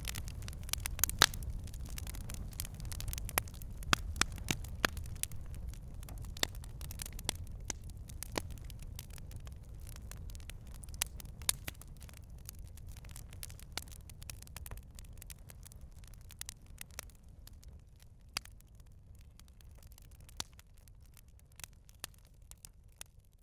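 Campfire crackling: scattered sharp pops and snaps over a low rumble of burning, gradually fading out.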